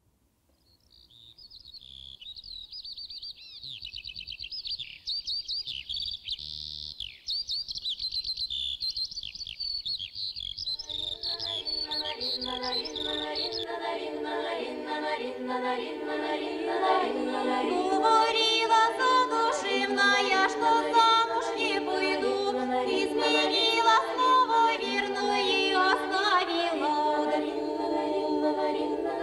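Recorded birdsong of quick, high chirps fades in, and about ten seconds in a choir singing a cappella takes over with several voices holding slow chords that gradually grow louder.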